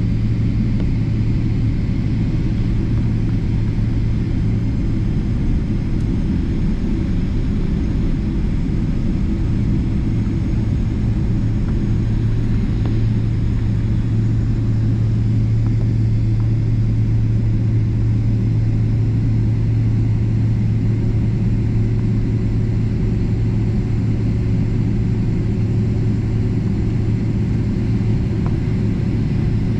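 Jet airliner taxiing after landing, heard from inside the passenger cabin: a steady low drone from the engines and cabin, with a constant deep hum.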